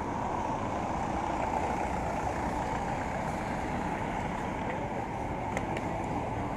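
Steady low rumbling noise with a few faint clicks near the end.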